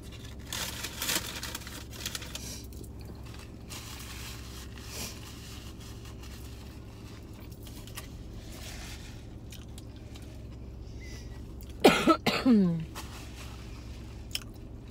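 A person chewing a large mouthful of food with soft crunching in the first few seconds, over a steady low hum in the car cabin. About twelve seconds in comes a loud cough, twice in quick succession.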